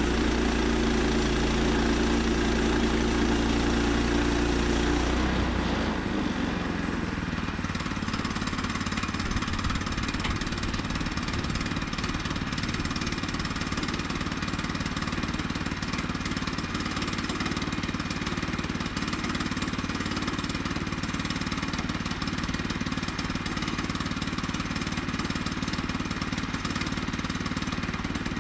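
Small gas engine of a Woodland Mills HM122 portable bandsaw mill running steadily. About five seconds in, the sound changes abruptly: the deep low hum drops away and the engine runs on lighter and more rattly.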